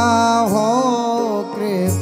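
Devotional Hindi song music: a long wavering melody line held and ornamented over a steady low accompaniment.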